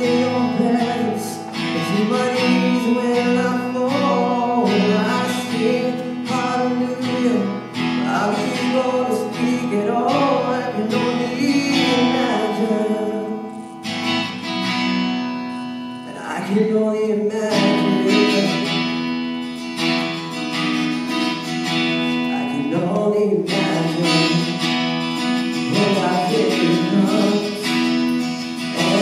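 Live band music: a singer over a strummed acoustic guitar, with drums keeping the beat.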